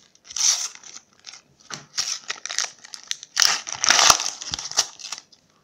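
Wrapper of a sealed packet of football trading cards being torn open and crumpled by hand: a run of crinkling, tearing rustles, loudest about three and a half to four seconds in.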